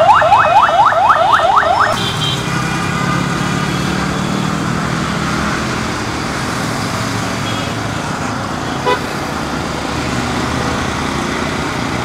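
A vehicle's electronic alarm sounding fast rising chirps, about six a second, which stops about two seconds in. Steady road traffic noise with a low engine hum follows.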